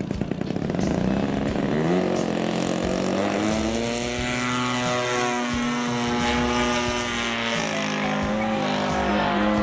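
Single-cylinder two-stroke 40cc MVVS petrol engine of a large radio-controlled Zlin 50LS model aeroplane on its takeoff run: the engine note rises over the first two seconds as the throttle opens, then holds steady at high revs as the model lifts off and climbs.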